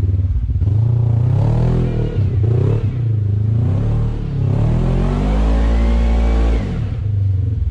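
Side-by-side UTV engine revving up and down repeatedly under load as it climbs a rock, holding high revs for over a second before dropping back near the end.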